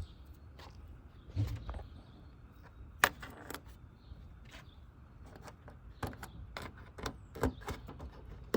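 Plastic push-pin retaining clips being pressed back into a Honda Accord's front bumper cover, giving irregular sharp clicks and snaps, the loudest about three seconds in and several more near the end.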